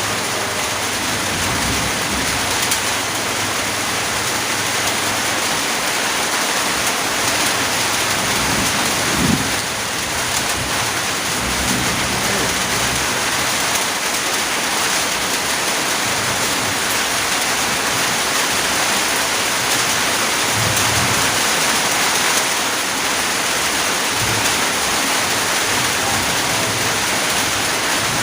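Steady rain falling on and around a house terrace: an even hiss of many drops that does not let up.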